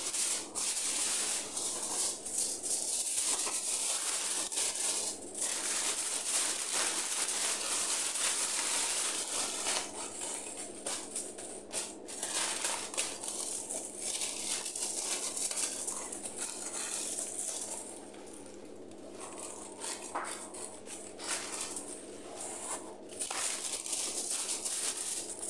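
Aluminium foil crinkling and rustling as a sheet is pulled over a wide pan and pressed down around the rim by hand, with a short lull about three-quarters of the way through.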